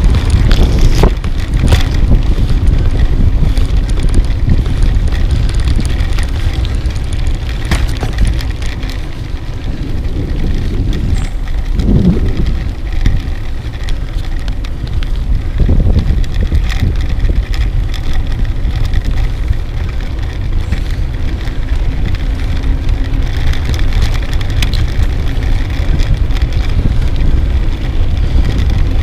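Wind buffeting the microphone of a camera mounted on a moving bicycle, with a steady rumble of tyre and road noise and scattered small knocks and rattles from the loosely held camera.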